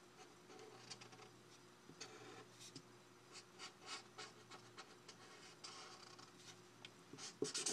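Faint scratching of a black felt-tip marker drawing short strokes on paper.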